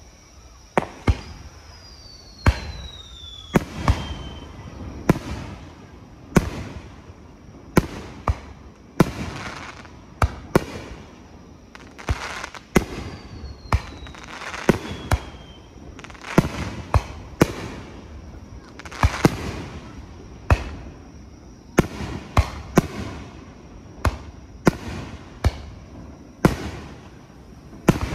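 Aerial firework shells bursting in a finale barrage: sharp booms about one to two a second, each with an echoing tail. Twice a thin whistle falls in pitch over two to three seconds.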